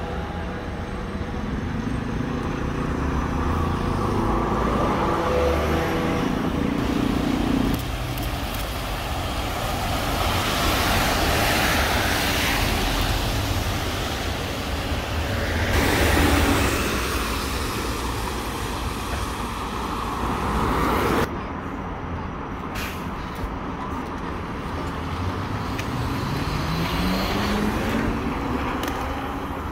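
Solaris Trollino 18 trolleybuses with Škoda electric drive running in street traffic, with road noise swelling twice as a vehicle passes. Near the end the electric traction motor gives a steadily rising whine as a trolleybus pulls away and accelerates.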